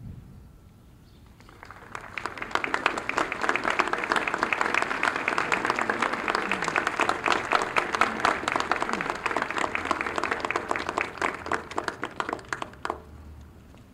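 Audience applauding: the clapping starts about a second and a half in, swells to a dense patter, then thins to scattered separate claps and stops about a second before the end.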